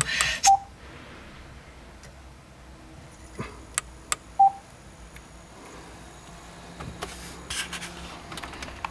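Two short electronic beeps about four seconds apart, with scattered sharp clicks as the Audi A3's steering-wheel control buttons are pressed to operate the Alpine head unit. A snatch of radio speech cuts off right at the start.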